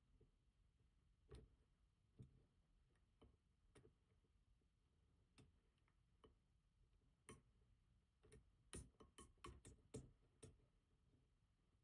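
Faint clicks of a pick turning the disks inside a Rosengrens 32A81 disk detainer safe deposit box lock: a few single clicks at first, then a quicker run of clicks in the last few seconds.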